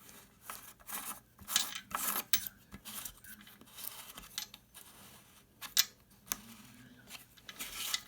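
A nut being turned by hand onto the threaded shank of a toilet tank's flush valve: irregular scraping and rubbing strokes with a few sharp clicks, the loudest click a little before six seconds in. It is only hand-tight and still needs a wrench.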